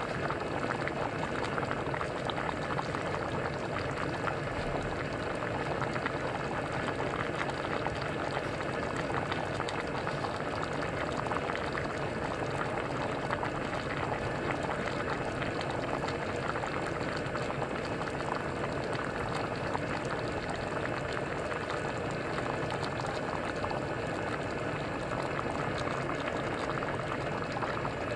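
Pot of champorado (chocolate rice porridge) boiling: a steady bubbling with many small pops.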